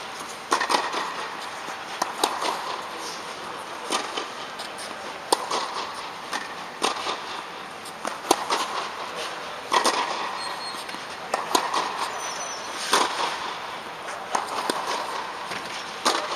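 Tennis rally: a ball struck back and forth with rackets, a sharp pop about every second and a half. Each hit rings on in the echo of the air-dome hall.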